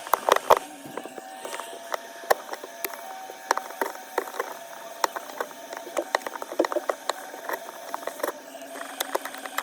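Irregular small clicks, taps and light scraping of hand repair tools working on an iPhone 13 Pro's body.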